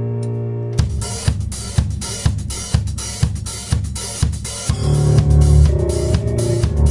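A rock band playing an instrumental cover. A held keyboard chord rings out, then the drum kit crashes in under a second in with accented hits about twice a second and cymbals. Near the middle, heavy sustained low notes from the rest of the band join in.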